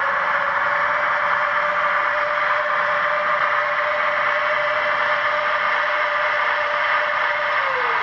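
Sound decoder of a Trix Lufthansa Airport Express model train giving the whine of the electric traction motors over a hissing running noise. The whine holds a steady pitch, then starts to fall near the end as the train slows.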